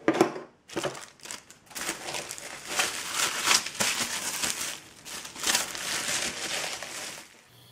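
Plastic bubble wrap crinkling and rustling in irregular bursts as it is handled and pulled open by hand. It starts about a second in and dies away near the end.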